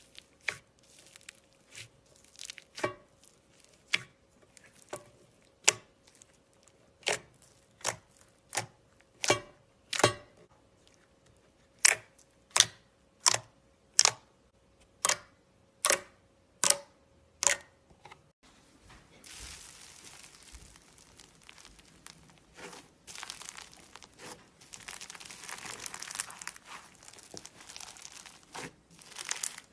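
Slime being pressed and squeezed: sharp air pops about once a second, then, about two-thirds through, a dense crunchy crackling as crunchy slime is worked.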